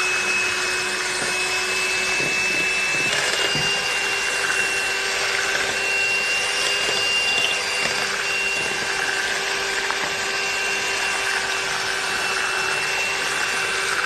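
Electric hand mixer running steadily, its twin beaters whisking cake batter of butter, sugar and eggs in a bowl. Its whine steps up slightly in pitch about three seconds in.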